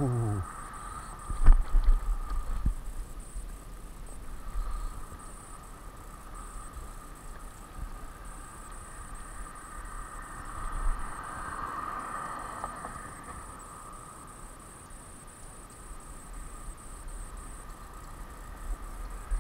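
Insects chirping in a steady high, evenly pulsing drone, with a few sharp knocks and bumps about a second and a half in, and low wind and handling rumble on a body-worn microphone.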